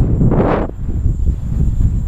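Strong wind buffeting a microphone in 15–30 mph gusts: a heavy low rumble throughout, with a brief hissing surge about half a second in.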